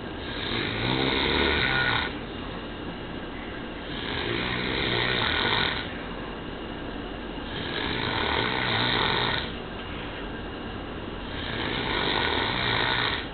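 A man snoring in a deep sleep after heavy drinking: four long snores, each nearly two seconds, coming about every three and a half to four seconds.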